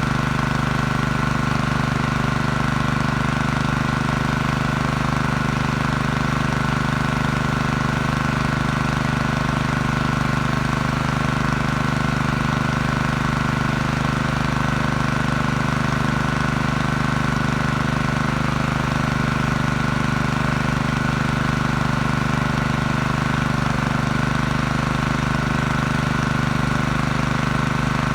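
Single-cylinder four-stroke Honda GX160 engine of a portable generator running steadily at constant speed, now starting and running after its carburetor was cleaned.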